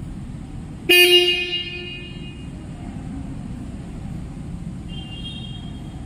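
Jawa 42 Bobber motorcycle's single electric horn sounding one short honk about a second in, then fading out within about a second.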